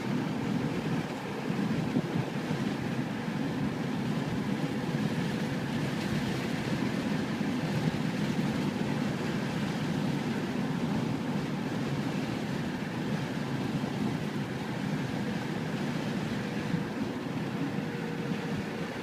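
Steady car engine and road noise heard from inside the cabin while driving slowly.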